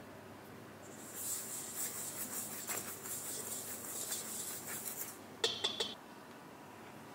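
Dry flour blend being stirred in a mixing bowl: a scratchy hiss for about four seconds, then four quick clinks of the utensil against the bowl.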